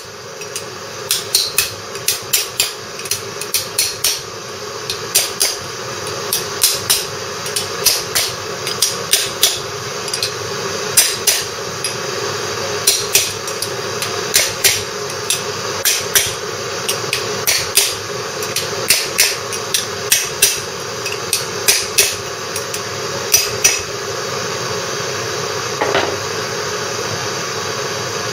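Small hammer tapping a drift around the outer race of a ball bearing to drive it into a Lister D crankshaft bearing housing: sharp metallic taps in quick irregular clusters, stopping a few seconds before the end. The bearing has been frozen and the housing heated, but the fit is still too tight for it to drop in, so it has to be drifted home.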